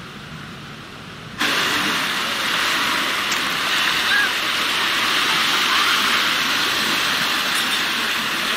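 Shallow seawater washing over sand around bare feet: a steady hiss of small surf. It comes in suddenly and loud about a second and a half in, after a quieter hiss.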